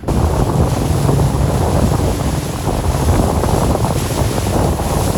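Heavy wind buffeting the microphone over a steady rush of water and waves, with no pauses.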